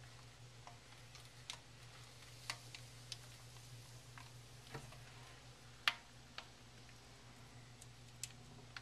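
Faint, irregular small clicks and ticks, with one sharper click about six seconds in, as a corn snake swallowing a rat shifts on a newspaper floor lining, over a steady low hum.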